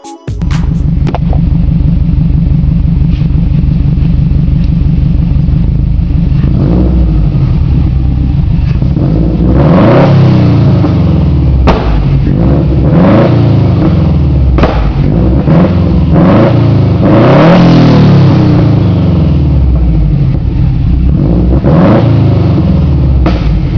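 Subaru WRX's turbocharged flat-four boxer engine running through an aftermarket header exhaust, idling and then blipped repeatedly. The revs rise and fall in short, separate surges spread through most of the stretch.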